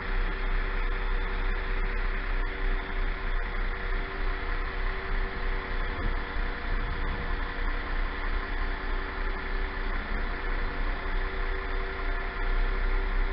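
Diesel train engine idling at the platform: a steady hum that holds one pitch throughout.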